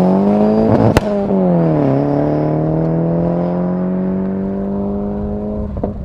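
Mazda Familia GTR's turbocharged 1.8-litre four-cylinder engine accelerating hard away under full throttle. There is a sharp crack about a second in, after which the note falls and then climbs again through the next gear, with another shift near the end.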